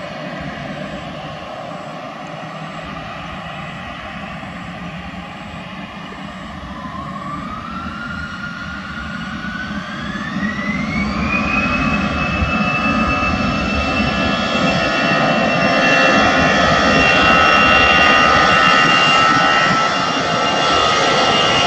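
Airbus A320's twin jet engines spooling up for take-off. A whine rises in pitch from about seven to eleven seconds in, then holds steady as the engine noise grows louder.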